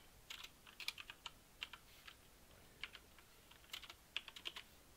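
Faint typing on a computer keyboard, with keystrokes coming in a few short bursts.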